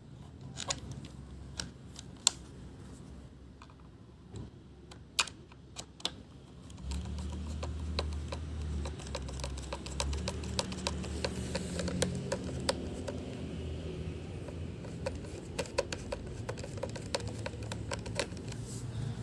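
Small plastic parts and screws clicking and tapping as a robot vacuum's motor cover is fitted back on by hand. From about seven seconds in, a steady low rumble runs under the clicks.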